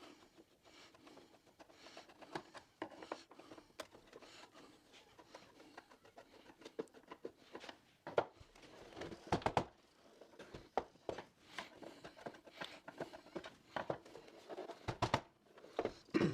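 Screws being backed out of the plastic housing of a Kreepy Krauly Racer pool cleaner with a screwdriver: scattered small clicks, scrapes and taps of the tool and the plastic parts being handled, with a few louder clusters of knocks.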